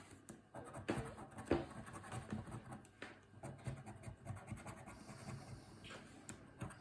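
Coating being scratched off a paper scratch card in faint, short, irregular strokes, with a couple of louder scrapes about a second and a second and a half in.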